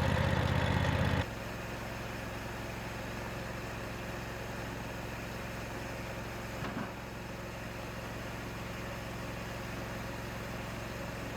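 The vintage sawmill's carbureted engine running hard with a fast, pulsing beat, then dropping sharply to a quieter, steady idle about a second in.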